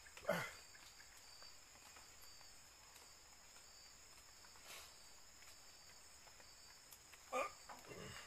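Faint chorus of night insects, a steady high-pitched buzzing. A brief falling sound comes just after the start and two more near the end.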